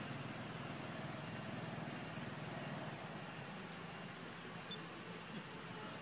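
Steady outdoor background hiss with a thin, continuous high-pitched whine over it; no distinct event stands out.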